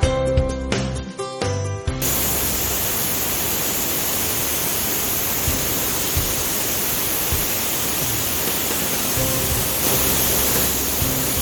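Background music, then about two seconds in a dry ice blasting nozzle starts: a loud, steady hiss of compressed air and dry ice that holds at an even level, with the music faintly underneath.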